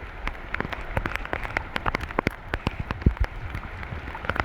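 Torrential rain with large raindrops: a steady hiss of rain thick with many separate sharp drop impacts.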